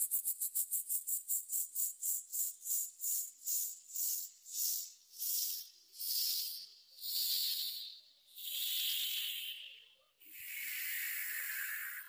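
A run of hissing pulses that start quick and slow down steadily, each one longer and lower-pitched than the last, until a final long hiss that cuts off suddenly: an electronic whoosh sound effect winding down.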